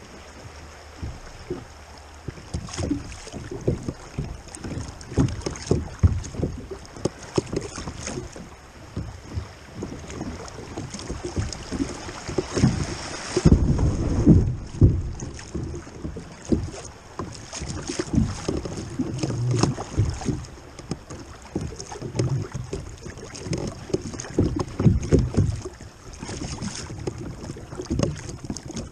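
Wind gusting on the microphone and river water splashing against a kayak's hull as it rides through choppy riffles, in irregular bumps that are loudest about halfway through.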